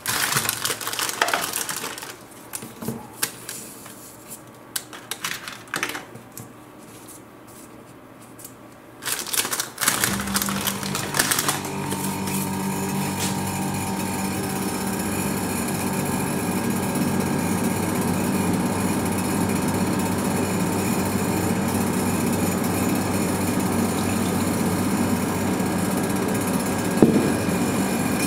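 Foil cookie packet crinkling and cookies tapped down onto a steel cold plate, in short scattered clicks and rustles. From about ten seconds in, the rolled-ice-cream machine's refrigerated cold plate runs with a steady mechanical hum.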